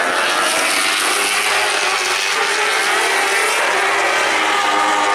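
Superbike racing motorcycles passing at speed, several engines at high revs blending into one loud, steady, many-toned howl.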